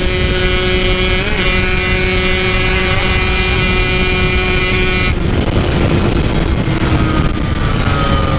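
Yamaha RX-King's two-stroke single-cylinder engine running at high, steady revs under wind and road rush, its note cutting off suddenly about five seconds in. After that only wind and road noise remain, with a faint whine falling in pitch as the bike slows.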